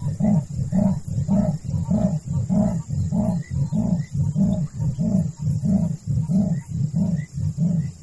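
A Southern African bird or mammal call: a long, even series of deep, low pulses, about three a second.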